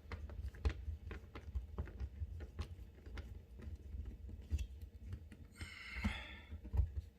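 Irregular light clicks and taps of a 3/16 socket tool and small metal screws being worked out of a dishwasher door panel, with a brief rasp about six seconds in.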